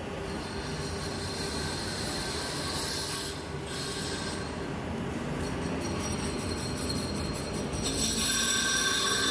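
Metal lathe running and cutting steel, with a steady metallic whine and squeal that shifts in pitch a couple of times.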